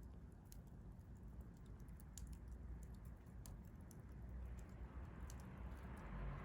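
Wood fire crackling, with scattered small sharp pops over a low rumble; a soft hiss swells near the end.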